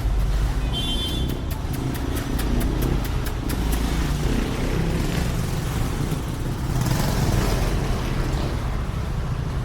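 Street traffic: motor vehicles running and passing with a steady low rumble. About two seconds in there is a quick run of clicks, roughly four a second, and a louder hissing swell comes near the end as a vehicle goes by.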